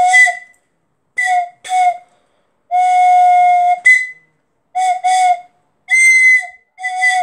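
Recorded steam locomotive whistle sound effect played back from a device: a string of whistle blasts at a steady pitch, mostly short ones in pairs, with one longer blast of about a second near the middle.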